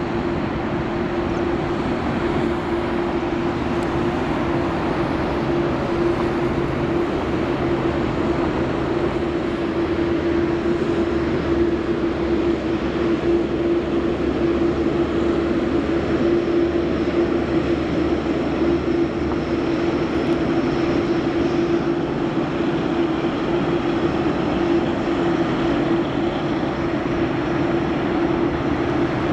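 Boeing 747-8 freighter's four GEnx turbofan engines running at taxi power as the jet taxis past: a steady rushing noise with a constant mid-pitched tone.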